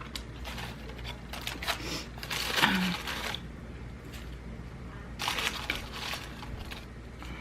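Close-up chewing of crunchy fried chicken wings and fries, in two stretches of crackling, crunching noise lasting about a second or two each.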